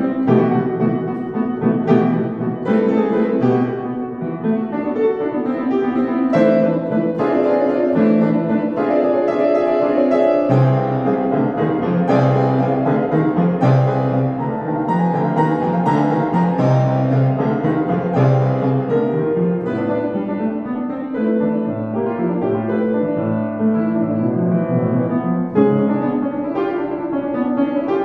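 Upright piano played solo: a classical piece in dense, continuous chords and runs with no pauses.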